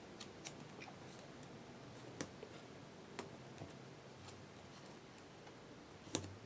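Faint handling of paper planner stickers: light rustling and scattered sharp clicks as small stickers are peeled and pressed onto the planner page by hand. The loudest click comes near the end.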